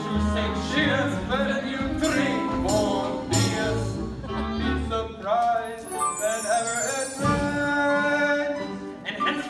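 Male performers singing a comic show tune over instrumental accompaniment, the voice sliding and breaking from note to note.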